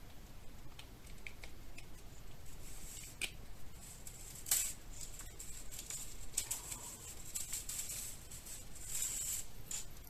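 Faint handling noises of a Swiss Army knife in a small 3D-printed plastic holder: scattered light clicks and rustles, with a denser run of ticks and a light bead-chain rattle near the end.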